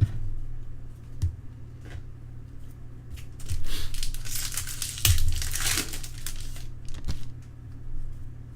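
Baseball card pack wrapper crinkling and tearing as a pack is opened, with a few light clicks scattered through; the crinkling is densest from about three and a half to six seconds in.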